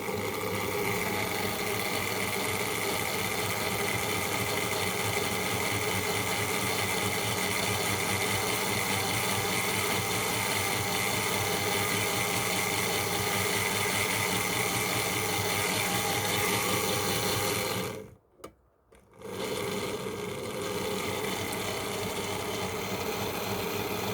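Tri-ang R.56 Baltic tank model locomotive's small electric motor running steadily with a whirring gear whine. It cuts out about 18 seconds in, then starts up again.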